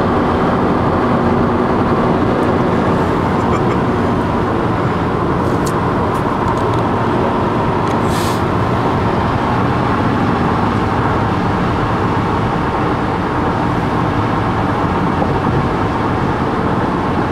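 Steady road noise of a car cruising at freeway speed, heard from inside the cabin: an even, low-heavy rumble of tyres and engine.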